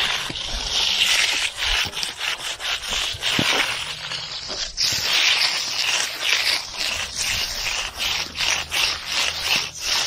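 Magnesium hand float rubbed over freshly poured wet concrete in quick back-and-forth strokes, about two a second, making a gritty scraping hiss as the surface is floated smooth.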